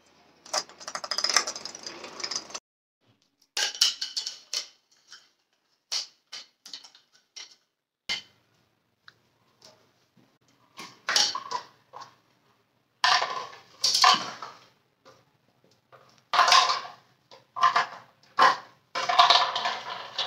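Hard plastic toys clattering and scraping on a hard floor as a Labrador puppy noses and pushes them about: irregular bursts of knocks and scrapes with short pauses between.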